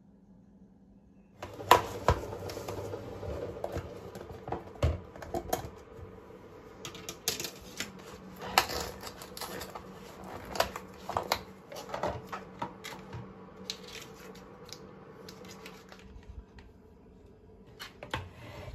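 Hands opening and handling a clear plastic supermarket sushi box: a busy run of plastic crinkles, clicks and taps that starts about a second and a half in.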